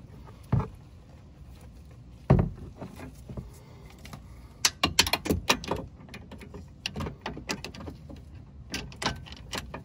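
Metal clicks and knocks from a wrench worked on the nut of a new stabilizer (sway bar) link: two sharp knocks in the first few seconds, then runs of quick clicks from about halfway through.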